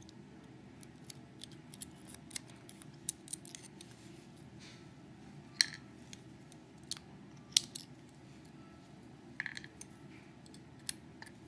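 Light, irregular metallic clicks and clinks of small lock parts (driver pins and springs) and hand tools, handled while a Schlage Primus lock cylinder is taken apart. Two sharper clicks stand out, about five and a half and seven and a half seconds in.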